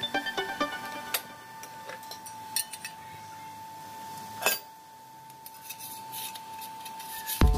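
Light metal clinks and taps as a hand drill is handled and fitted into a stainless-steel clamp bracket, with one sharper knock about four and a half seconds in, over a faint steady tone.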